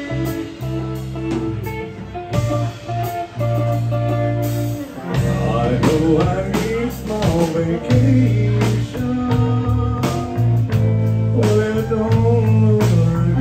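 Live country band playing a slow song: fiddle, acoustic and electric guitars and a drum kit.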